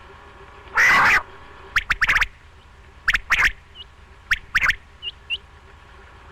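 Common quail calling its three-note 'whit, wet-wit' song three times in succession: a single sharp note followed by two quick ones, with a louder rasping burst about a second in and a few faint chirps between.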